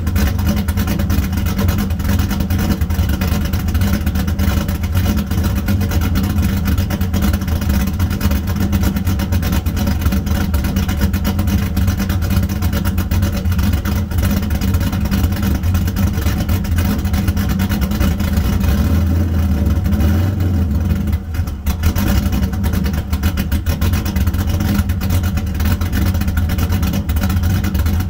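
Cammed LS1 5.7-litre V8 in a fourth-generation Chevrolet Camaro idling steadily, its deep exhaust heard at the tailpipe, with no revving.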